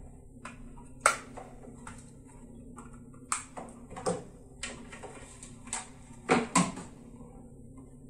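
Clicks and light knocks from cables being plugged into a plastic Android TV box and the box being handled, about seven of them spread over several seconds, over a faint steady hum.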